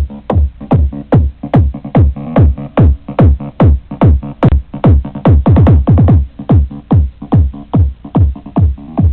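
Electronic dance music played very loud through a car sound system, a heavy kick drum beating about two to three times a second, each beat a deep falling boom.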